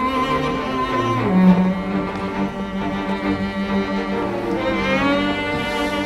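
Background score of slow, low bowed-string notes, each held for a second or more before moving to the next.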